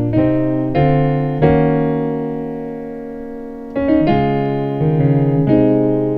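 Piano chords played as a gospel chord movement in C sharp (D flat): a few chords struck in quick succession, one held ringing and fading for about two seconds, then more chords struck near the end.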